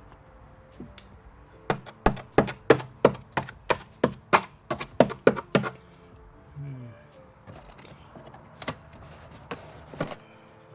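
A tool poking and knocking at the bare floor of a Nissan Patrol Y60: about a dozen sharp knocks in quick succession, then two more single knocks. The owner is checking the floor's condition after removing the flooring.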